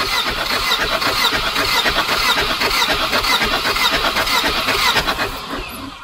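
Volvo B230 four-cylinder engine being cranked over on the starter without firing for a compression test, with an even pulse from each compression stroke. The cranking stops near the end.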